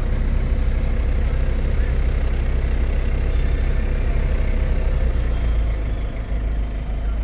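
Engine running with a steady low rumble, easing slightly near the end.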